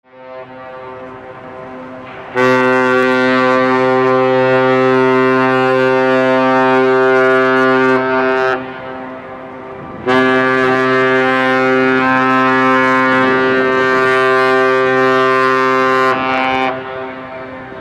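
A cruise ship's horn sounding two long, deep blasts of about six seconds each, with a short break between them. A quieter tone at the same pitch is heard before the first blast and in the gap.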